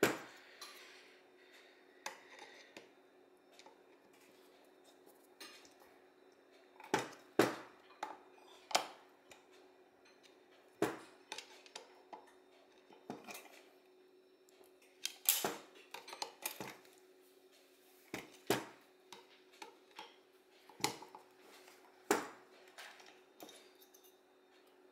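Small metal parts and hand tools of an Autolite 2100 carburetor being reassembled, clinking and clicking: about a dozen sharp, irregular clinks, over a faint steady hum.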